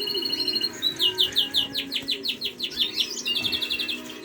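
Caged finches and canaries chirping and singing: a quick run of repeated high notes through the middle, then a fast trill near the end.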